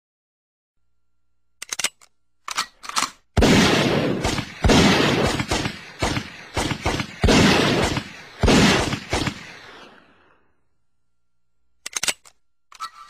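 Gunshot sound effect: a few sharp clicks, then a string of loud gunshots fired in quick, irregular succession for about six seconds, each trailing off in echo. Near the end come a couple more sharp clicks.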